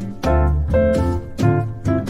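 Instrumental background music, with chords struck about twice a second.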